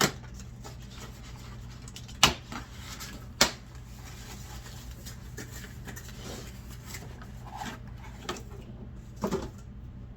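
Packaging and a plastic lamp oil bottle being handled: rubbing and rustling, with two sharp knocks about two and three and a half seconds in and a softer knock near the end, over a steady low hum.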